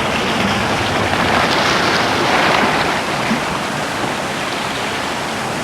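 Sea surf washing on the coast: a steady rushing noise that swells and eases.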